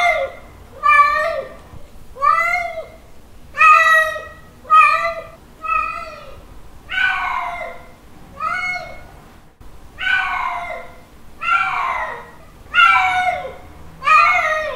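Male cat's mating calls: a string of drawn-out meows, about one a second, each rising and then falling in pitch.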